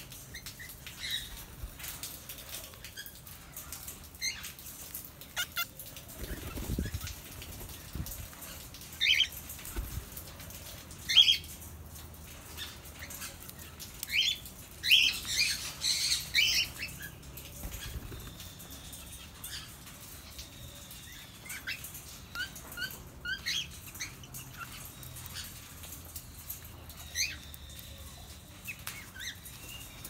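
A few cockatiels giving short chirps and squawks now and then, with a busier flurry of calls and wing flapping about halfway through. A couple of low thumps sound early on.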